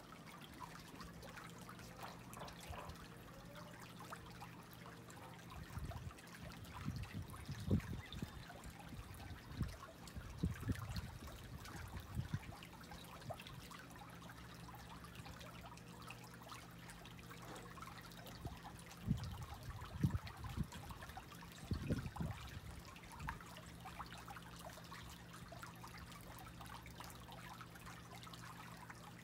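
A turtle urinating: a faint trickle of liquid over a steady low hum, with scattered low thumps in two spells.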